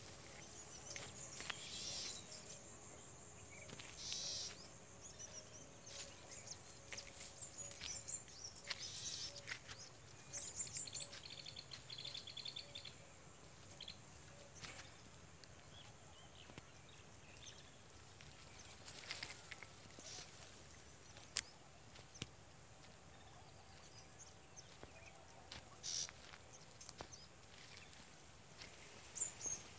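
Faint open-field ambience with scattered bird chirps and a short run of calls a little before the middle, over a steady low hiss. Crop stalks brushing against the walker now and then make brief rustles.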